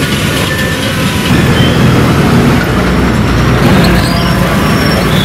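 Road traffic noise: vehicles running on a busy street, growing louder about a second and a half in.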